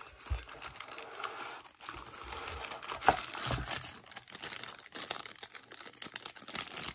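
Clear plastic bag crinkling and crackling irregularly as the wrapped watch is handled and lifted out of its box.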